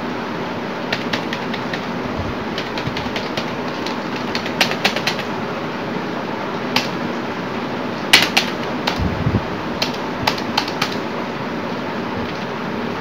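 Irregular, scattered clicks of computer keys over a steady background hiss, with a brief flurry of louder clicks about eight seconds in.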